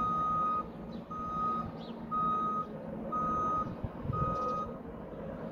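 Vehicle reversing alarm beeping five times, a steady high tone about once a second, then stopping a little before the end. A steady low drone runs underneath.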